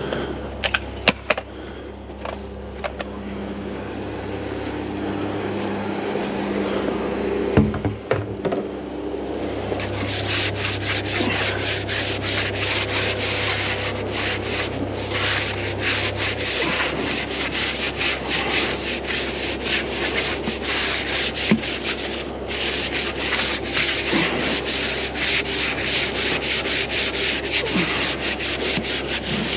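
Long-handled wash brush scrubbing the soapy steel wheel rim and tyre of a JCB Fastrac tractor with rapid back-and-forth strokes, starting about a third of the way in. Before that there are a few sharp clicks and a knock over a steady low hum.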